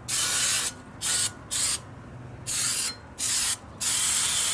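Aerosol spray can spraying in six short bursts, the last one the longest at about a second.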